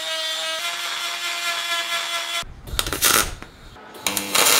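Handheld rotary deburring tool spinning against the edge of a cut slot in steel plate with a steady whine, its pitch shifting slightly about half a second in. The whine cuts off about two and a half seconds in, and short crackling bursts of MIG tack welding follow.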